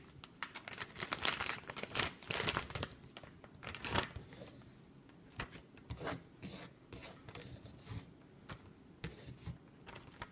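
Plastic zip-top freezer bag crinkling and rustling in irregular bursts as handfuls of boiled corn kernels are pushed into it, loudest in the first four seconds and sparser after.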